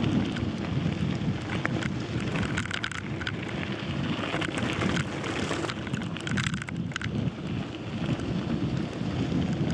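Bicycle riding down a gravel road: a steady crunch and rattle of tyres on loose gravel, mixed with wind buffeting the microphone.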